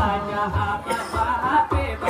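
Selawat dulang: a singer's melismatic chant over low, regular beats struck on a large brass tray (dulang), about two beats a second.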